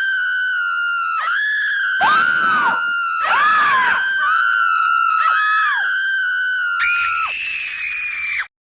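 High-pitched human screaming in overlapping layers: one long held scream with shorter screams that break and fall in pitch over it, then a higher scream near the end that stops abruptly.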